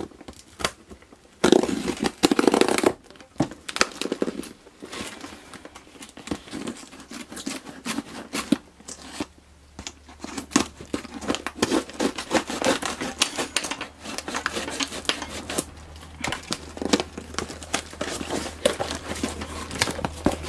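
Cardboard shipping box being cut and torn open, with a loud ripping tear about a second and a half in, then irregular crinkling and rustling of the packaging as it is pulled apart.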